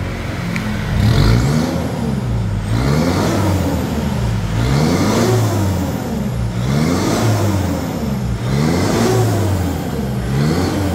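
Mitsubishi Pajero's engine through a newly fitted aftermarket racing exhaust, revved up and let fall back about six times in a row, the pitch rising and dropping with each blip.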